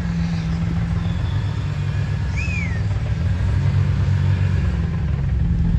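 BMW M3's S54 straight-six running steadily at idle, a low even rumble with no revving. A single short chirp rises and falls about two and a half seconds in.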